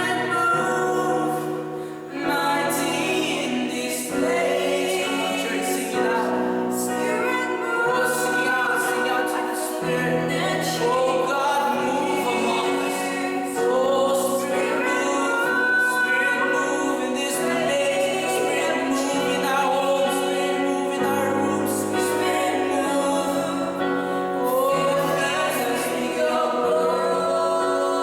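Congregational worship song: voices singing a slow melody over instrumental backing with a moving bass line.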